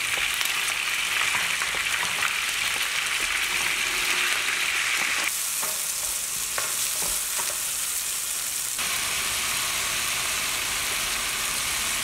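Pork ribs frying in hot oil in a nonstick pan: a steady sizzle with crackling. About five seconds in it cuts to diced tomatoes sizzling as a wooden spatula stirs them, with a few knocks of the spatula on the pan, and a few seconds later to another steady sizzle.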